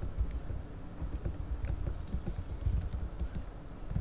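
Irregular soft thumps and light clicks, like typing on a computer keyboard and small knocks on a desk close to the microphone.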